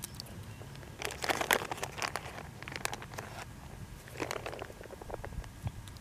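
Edamame pods squeezed and split open by hand, giving a run of crunchy snapping and crinkling from about a second in, with a shorter burst a little later, as the beans are popped out into a mess tin of rice and water.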